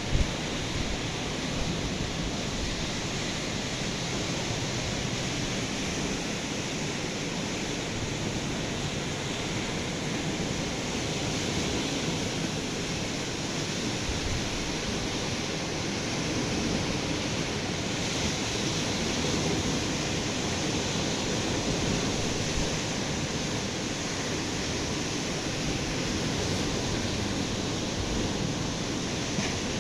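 Steady rush of ocean surf breaking on the beach, with a brief click at the very start.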